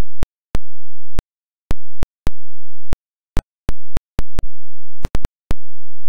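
Sharp clicks, about eighteen at irregular intervals, as the sound cuts in and out between dead silence and a faint hum. After about five and a half seconds the clicks stop and only the faint steady hum remains.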